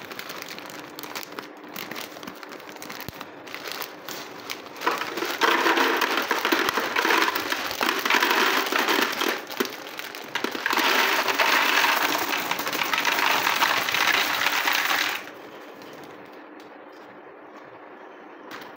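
Dry short-tube macaroni poured from a crinkling plastic packet into a plastic jar: a dense rattle of pasta pieces landing on plastic. It grows louder about five seconds in and stops a few seconds before the end.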